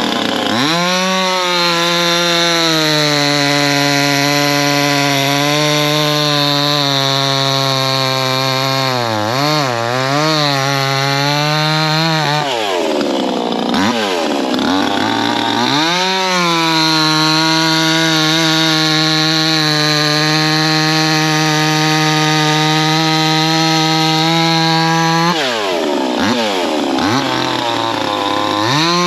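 68cc two-stroke chainsaw running at high revs while cutting through hardwood, with a steady engine note. The revs drop and climb back again a few times, about ten seconds in, around thirteen to fifteen seconds, and near twenty-six seconds, as the throttle eases between cuts.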